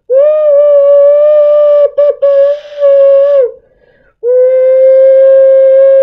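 Plastic ocarina blown in two long, steady held notes, imitating a train whistle. The first note breaks off twice briefly about two seconds in.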